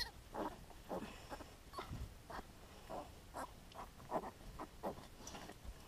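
Pig grunting in short, separate grunts, about two a second, during farrowing.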